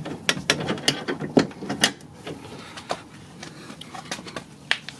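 Small metal lock parts clicking and clacking as a car door key cylinder is fitted back together, a quick run of sharp clicks in the first two seconds, then a few scattered ones.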